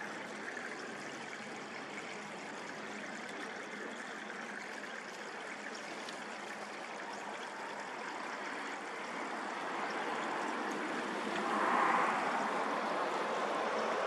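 A steady rush of running water, swelling briefly about twelve seconds in.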